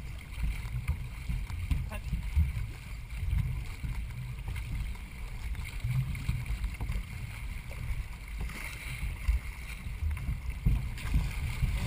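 Wind buffeting the microphone of a GoPro mounted on a racing canoe under way, an uneven low rumble, with water noise from the moving canoe beneath it.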